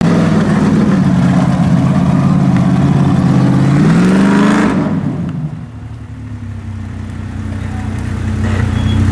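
Jeep engine working hard under load as it climbs a steep dirt hill, its revs rising about four seconds in, then falling off to a quieter, lower running note before building again near the end.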